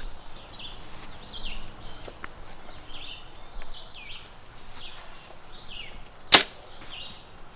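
An arrow shot from a compound bow: one sharp crack about six seconds in.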